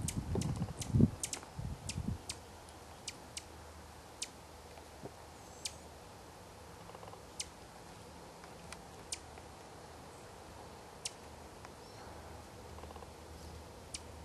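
Brief sharp high ticks at uneven intervals, about a dozen, over a faint steady background. During the first two seconds there is also a loud low rumble.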